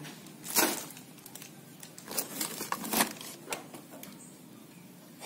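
Clear plastic wrapping crinkling and rustling in scattered short bursts as wrapped toys are handled, the loudest crackle about half a second in.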